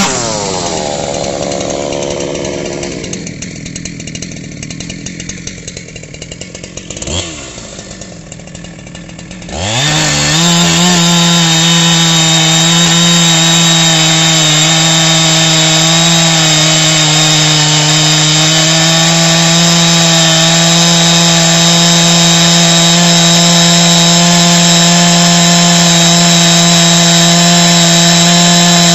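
Ported two-stroke Neo-tec NH 872 chainsaw (MS380 clone) breaking out of its cut and falling back off full revs. About ten seconds in, a second ported two-stroke chainsaw, the Baumr-AG SX92 (372XP clone), revs up quickly and holds steady at full throttle while ripping through a large log.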